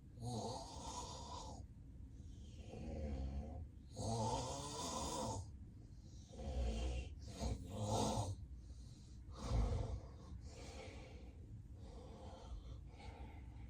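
A man with severe sleep apnea snoring heavily in his sleep. About six loud, irregularly spaced snoring breaths come in the first ten seconds, the last of them the loudest, then the breathing turns softer and shorter.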